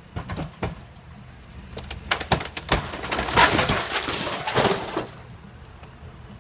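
Fire-weakened, weathered wooden wall framing of a burned-out house cracking and breaking apart under a vehicle's pull: a few sharp cracks about a second in, then a dense run of cracking and crashing from about two to five seconds in. A faint steady low hum runs underneath.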